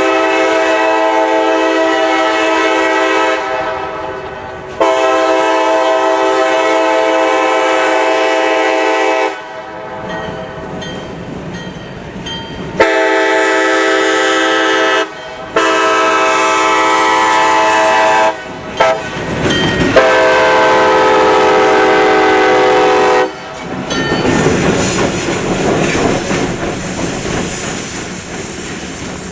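Leslie K-5LAR24 five-chime locomotive air horn blowing a series of long blasts, each a few seconds of one steady chord. There is a brief toot just before the fifth blast, and the last few seconds hold a quieter rushing noise.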